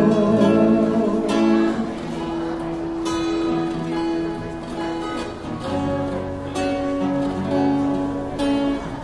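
Acoustic guitar strumming slow chords as the song closes, a stroke every second or two and each chord left to ring.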